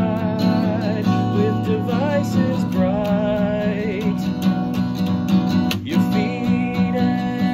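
A man singing a song while strumming an acoustic guitar, its chords ringing steadily under his voice.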